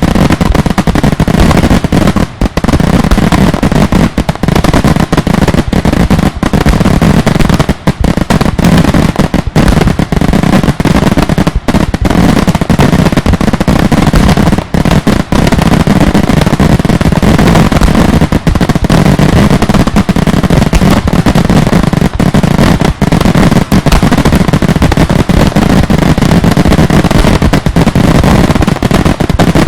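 Daylight fireworks going off in a dense, continuous barrage of loud bangs, so close together that they merge into one another, with only a few brief gaps.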